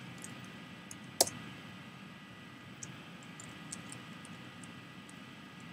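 Computer keyboard keys being pressed: a handful of faint scattered key clicks, with one loud, sharp key strike about a second in.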